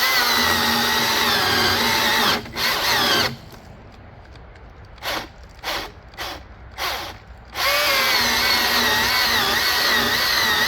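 Milwaukee M18 Fuel 16-inch battery chainsaw cutting through a 7 to 8 inch oak log, its electric motor whining under load. A few seconds in the saw stops and gives a string of short spurts before running steadily again, a sign that it doesn't like being overstressed.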